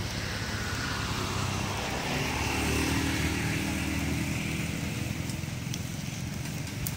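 A motor vehicle's engine running steadily, with a few light ticks near the end.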